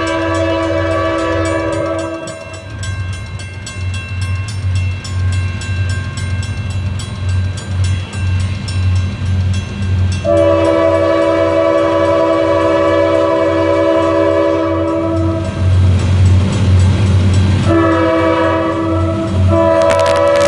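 Air horn of an approaching freight train's lead diesel locomotive, an ex-CSX GE C40-8, sounding for a grade crossing: the end of one long blast, then a long blast about ten seconds in, a shorter one, and a final long one starting near the end. Under the horn, the diesels' low engine rumble pulses and grows louder as the locomotives draw near.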